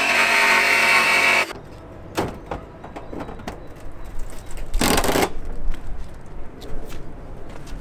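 DeWalt jigsaw cutting through the van's sheet-steel side panel, stopping abruptly about a second and a half in. After that, scattered clicks and knocks of the loose cut-out sheet-metal panel being handled, with a short loud rattle of the panel about five seconds in.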